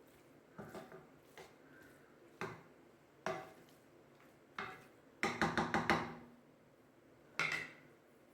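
Metal utensil knocking and tapping against a cooking pot: a handful of separate knocks, then a quick run of about six taps a little past five seconds in, and one more knock near the end.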